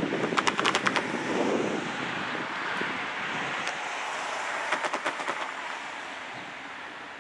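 Wind buffeting the microphone and a car passing on the road. There are two short bursts of rapid clicking, one about half a second in and another about five seconds in.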